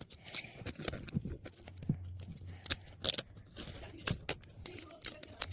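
Packaging being torn open and crinkled by hand: a run of irregular sharp rips, rustles and clicks.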